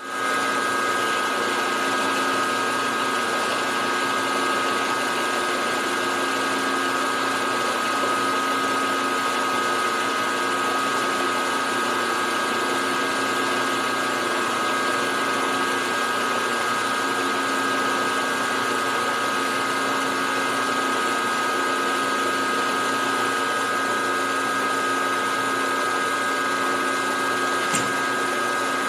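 Milling machine spindle running a boring head that is cutting a drilled hole out to its final diameter: a steady machine drone with a constant high whine.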